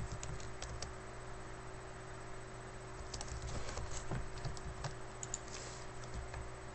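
Computer keyboard typing: short runs of keystrokes, a cluster near the start and another a few seconds in, over a faint steady hum.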